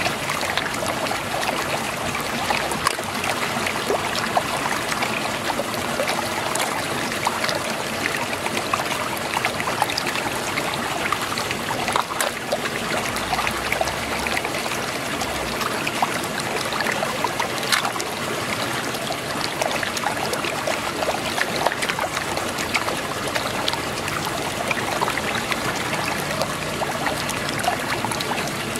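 Muddy water swirling and churning steadily in a whirlpool, with scattered small clicks and splashes.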